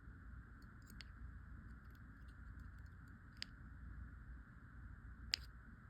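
Faint small clicks of wire and tools being handled while wire wrapped around a seashell is twisted tighter: a few scattered ticks, two of them sharper about three and a half and five and a half seconds in, over a low steady hum.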